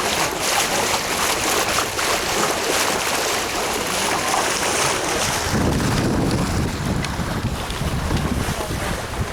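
Water rushing along the hull of a sailing smack under way, with a steady wind hiss. About five and a half seconds in, wind starts buffeting the microphone with a heavy low rumble.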